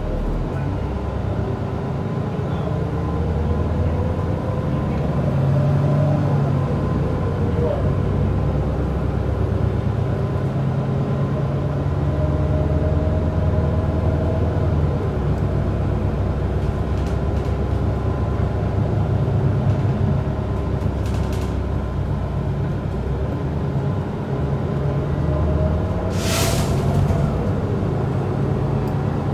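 Cabin sound of a 2021 Gillig BRT bus under way: its Cummins L9 inline-six diesel drones steadily, with a faint drivetrain whine that rises and falls several times as the bus speeds up and slows. A short hiss comes about 26 seconds in, and another at the very end.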